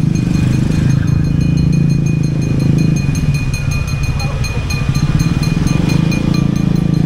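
Motorcycle engine running on the move. The engine note drops about three seconds in, as when easing off the throttle, and picks up again a couple of seconds later.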